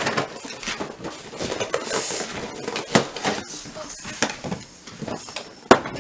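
Presents and packaging being handled: rustling paper and plastic with scattered clinks and knocks, two sharper knocks about halfway and near the end.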